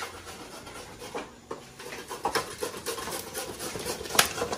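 Split firewood burning in the firebox of a wood-burning stove, crackling irregularly, with one sharper pop near the end.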